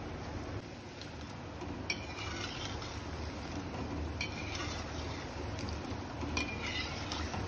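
Lentil-batter pakodi deep-frying in hot oil in a steel kadhai, a steady sizzle, with a metal slotted spoon stirring them and scraping against the pan three times.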